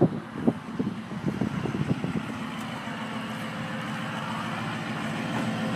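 A vehicle engine idling with a steady low hum that grows a little louder toward the end. Irregular knocks and thumps come in the first two seconds.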